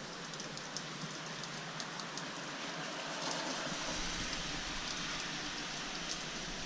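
Heavy rain pouring steadily, with scattered sharp drip ticks over the even hiss; it swells slightly about three seconds in.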